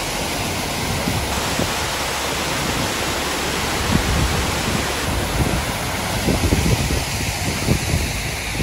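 Waterfall: water cascading over rock ledges into a pool, a steady rushing noise, with irregular gusts of wind buffeting the microphone, more in the second half.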